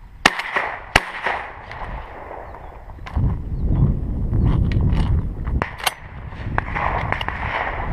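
Two shots from a 12-gauge Remington Versamax semi-automatic shotgun, fired in quick succession well under a second apart, each ringing briefly. A few seconds of low rumbling noise follow, with scattered small clicks.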